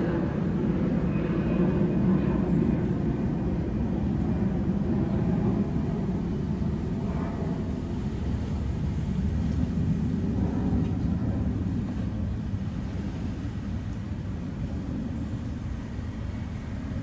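Steady low rumble of street traffic, slowly fading toward the end.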